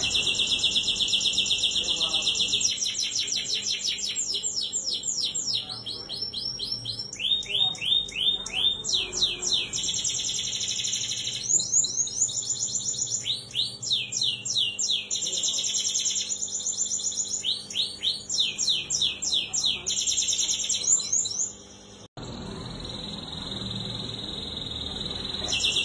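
Domestic canary in full song: long, fast rolling trills alternating with runs of quick down-slurred notes, high-pitched throughout. The song breaks off briefly near the end, then the trilling starts again.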